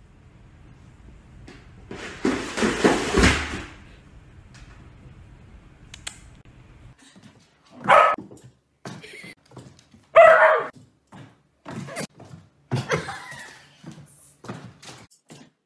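A noisy clatter lasting about two seconds, then a dog barking in short, sharp barks several times, the loudest about ten seconds in.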